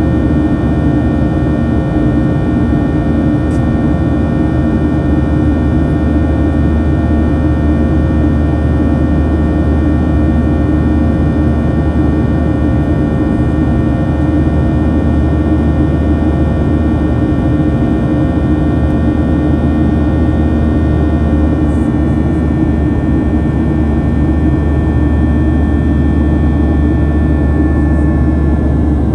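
Boeing 737-800's CFM56-7B turbofan engines heard inside the cabin over the wing while climbing out after takeoff: a loud, steady drone with a layer of held whining tones, which ease slightly lower in pitch near the end.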